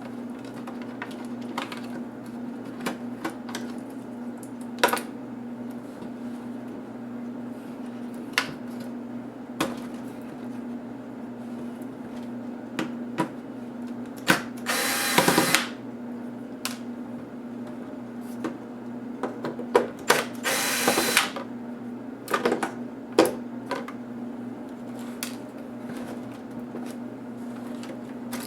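Scattered clicks and knocks of plastic laptop parts and screws being handled during disassembly, over a steady low hum, with two harsh bursts of about a second each, one about halfway through and another some five seconds later.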